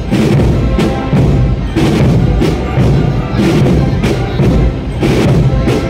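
An agrupación musical, a Holy Week marching band of cornets, brass and drums, playing a processional march, with regular drum strikes under the melody.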